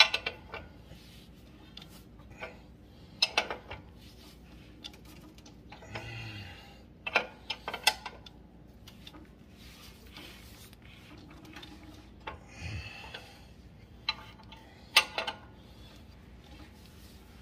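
Ratchet wrench turning the drive-belt tension bolt on a zero-turn mower's steel frame, tensioning the belt. There are irregular sharp metal clicks and clinks, with two short rasping runs of the ratchet about six and thirteen seconds in.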